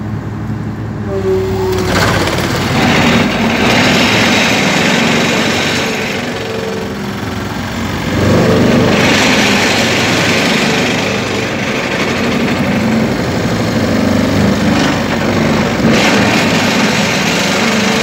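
Hydraulic vibratory pile driver (vibro hammer) on an excavator's boom shaking a steel pile down into the riverbed: a loud, steady mechanical buzz. It comes on suddenly about two seconds in, eases a little around six seconds and swells again at eight.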